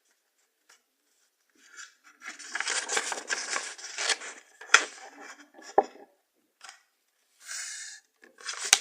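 A sheet of paper rustling and crackling as it is folded and creased by hand, starting about two seconds in, with a few sharp clicks.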